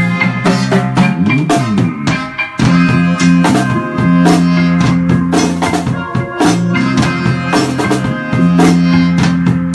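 Drum kit played in a reggae one drop rhythm, sticks on snare, cymbals and toms, over a reggae backing track.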